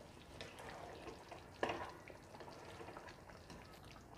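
Spatula stirring rice through simmering tomato water in a nonstick pan: faint sloshing and simmering with a few soft scrapes against the pan, the clearest about one and a half seconds in.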